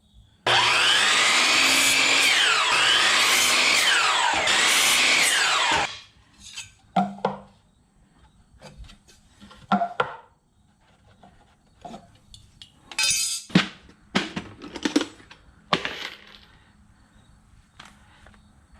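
A power tool motor runs loud for about five seconds, its pitch dipping and recovering twice as it works under load, then stops; short bursts, knocks and clicks of work on the wooden frame follow.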